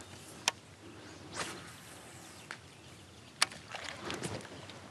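Two sharp clicks about three seconds apart, with soft swishes of water in between, from a rod and reel being worked from a kayak.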